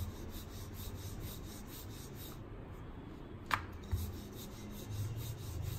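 Wooden rolling pin (belan) rolling stuffed paratha dough on a stone rolling board (chakla): a soft, low rubbing rumble that swells and fades with each stroke, with two light clicks a little past halfway.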